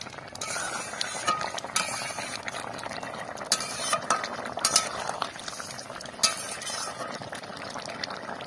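A metal spatula scrapes and clinks against a metal kadai as a thick curry is stirred, with irregular sharp clinks over the curry's steady boiling bubble.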